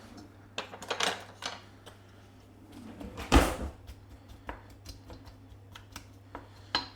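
Clicks and knocks of cookware and utensils being handled on a kitchen counter and stove, with one louder knock about three seconds in.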